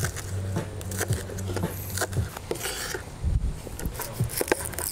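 Kitchen knife chopping spring onions on a bamboo cutting board: a run of irregular knocks as the blade strikes the board.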